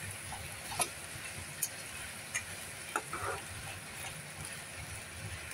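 Chicken and masala frying in a non-stick pan, a steady low sizzle, while a metal spatula stirs it, with about five short taps and scrapes of the spatula against the pan.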